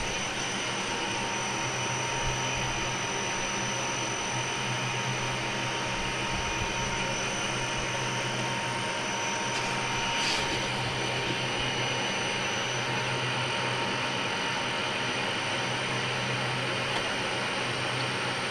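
Steady hum and whir of a CNC milling machine running, its motors and fans going, with a faint click about ten seconds in.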